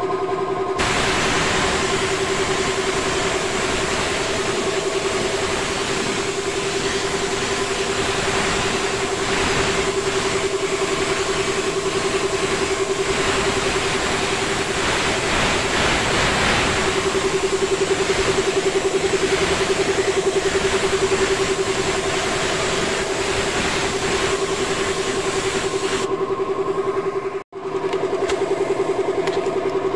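Electric air compressor running with a steady hum, under a loud hiss of compressed air from a paint spray gun. The hiss stops near the end, there is a brief break, and the compressor hum carries on alone.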